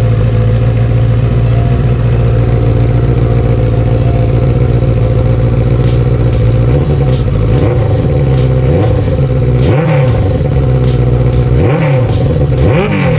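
Benelli BN600i inline four-cylinder engine, fitted with an aftermarket MV Agusta-style triple-outlet exhaust, idling steadily and then revved in several short throttle blips over the second half, with sharp clicks among the blips.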